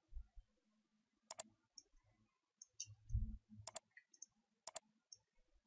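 Computer mouse clicking three times, each a sharp press-and-release pair, with lighter ticks and a couple of low thumps between them.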